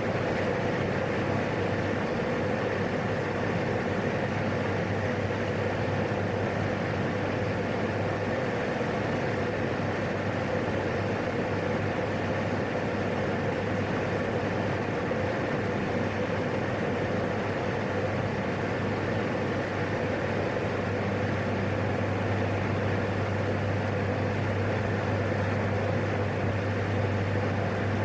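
Steady drone of a PAC 750's single turboprop engine and propeller at climb power, with a held low hum and a mid-pitched tone over the engine noise, heard in the cockpit during the takeoff climb.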